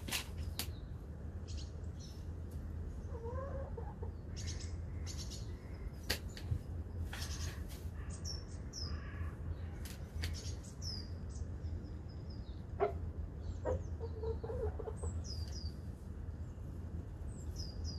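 Hens in a pen giving a few soft, low clucks, with occasional short clicks and scratches, over many short, high bird chirps and a steady low hum.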